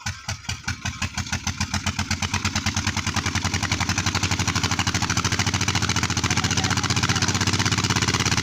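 Diesel tubewell engine catching and picking up speed, its firing beats quickening and growing louder over the first few seconds, then running steadily.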